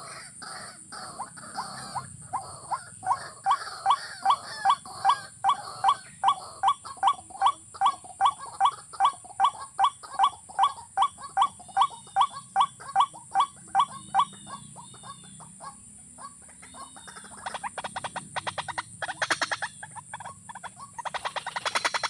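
A rail calling: a long, even series of short, loud calls, about two to three a second, that fades out about two-thirds of the way through. A faster rattling series follows near the end.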